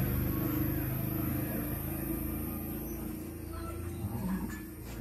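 A motor vehicle engine running with a steady low hum that slowly fades away.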